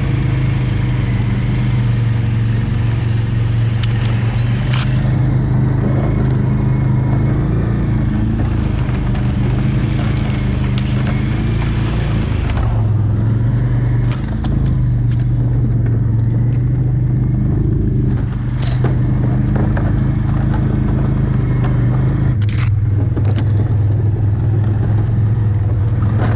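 Quad (ATV) engine running at low speed under load, its pitch shifting with the throttle and briefly easing off twice, about halfway and two-thirds of the way through. Scattered sharp clicks and knocks sound over it.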